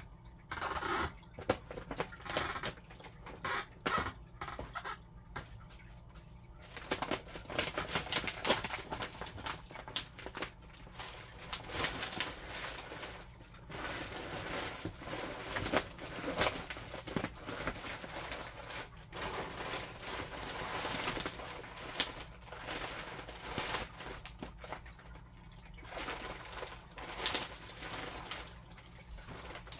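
Scissors cutting, a long run of irregular sharp snips and crunches with handling knocks, denser from about seven seconds in.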